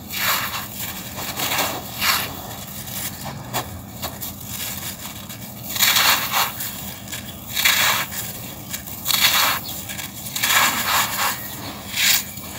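Lumps of dry packed sand crushed and crumbled by hand, with gritty crunches and loose grains pouring onto sand, in irregular bursts about every second or two.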